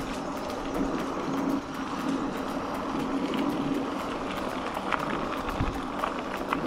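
Mountain bike tyres rolling over a crushed-stone trail: a steady rushing noise with scattered small clicks and pops from the gravel.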